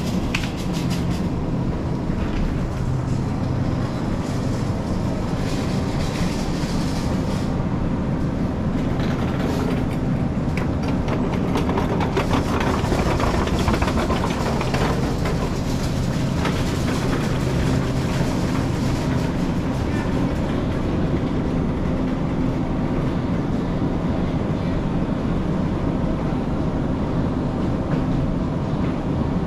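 Supermarket ambience: a steady low hum with an even background haze, and a stretch of rattling clatter through the middle.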